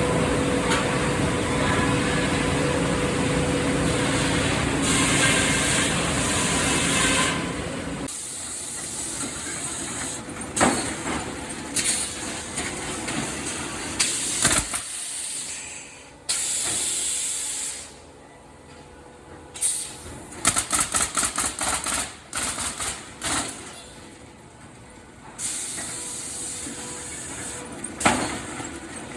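Sawmill machinery running: a steady motor hum for the first several seconds, then quieter, broken-up sound with sharp knocks, bursts of hissing and a quick run of repeated clattering bursts.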